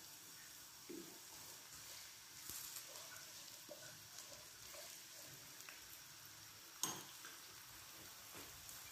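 Chopped onions frying gently in oil in a karahi: a faint sizzle with scattered small pops and one sharper click about seven seconds in.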